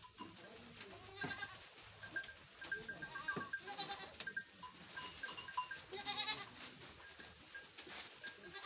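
Goats feeding on hung leafy branches: leaves rustling and being torn off, with a few goat bleats, about a second, four seconds and six seconds in.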